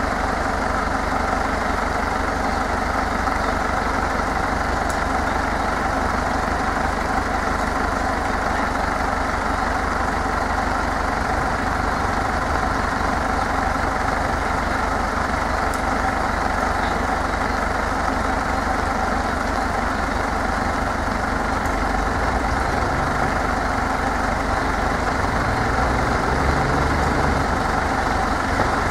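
Tractor engine idling steadily, a continuous low rumble, with the engine note shifting slightly near the end.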